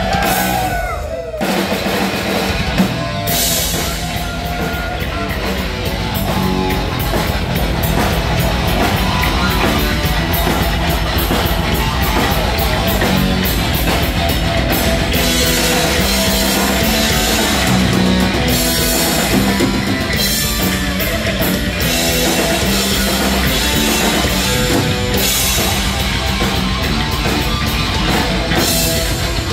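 Heavy metal band playing an instrumental live: distorted electric guitar over a drum kit with crashing cymbals. A gliding guitar bend opens it, with a brief drop just after a second in.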